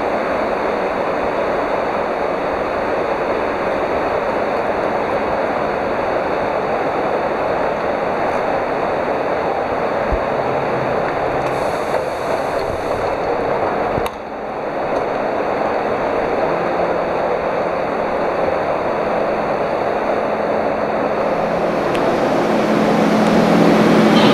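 Steady hum and hiss of an underground railway platform with a TGV EuroDuplex standing at it, with faint steady high whines over the noise. It grows louder with a low steady tone near the end.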